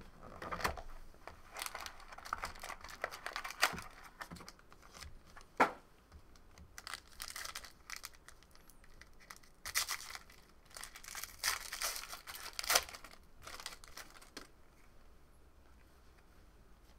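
Foil trading-card pack wrappers being torn open and crinkled by hand, in irregular rustling bursts with a few sharper crackles.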